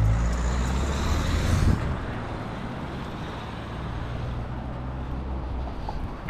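Road traffic: a motor vehicle passes close by, loudest about a second and a half in, then fades into a steady low traffic rumble.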